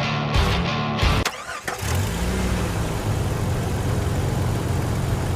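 Rock guitar music ending about a second in, followed by a car engine starting and then running steadily.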